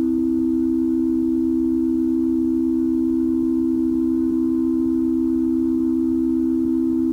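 Ambient music from a 1992 four-track cassette recording: a drone of two steady held tones, close together in pitch, with faint overtones above.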